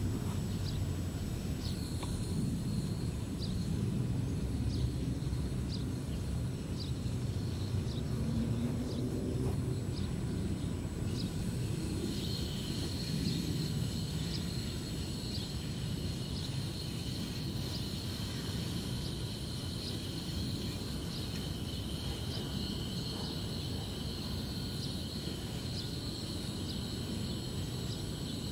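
Outdoor ambience: a steady low rumble of wind on the microphone with short high-pitched chirps about once a second, joined about halfway through by a steady high-pitched trilling chorus.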